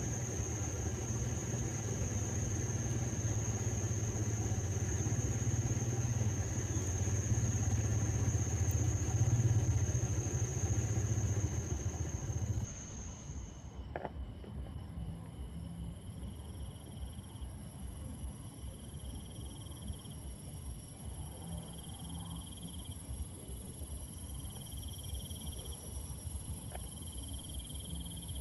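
A small boat's motor running with a steady low hum, with a steady high-pitched insect whine above it. About halfway through, the sound cuts abruptly to crickets and other night insects trilling steadily, with an occasional faint click.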